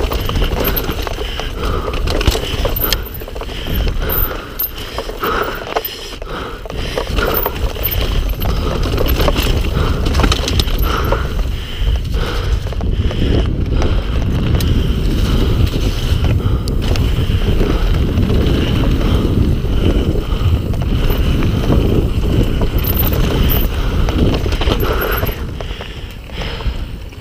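Mountain bike riding down a rocky trail: tyres crunching over rock and gravel, with chain and frame rattling and wind rumbling on the microphone. The noise eases off near the end.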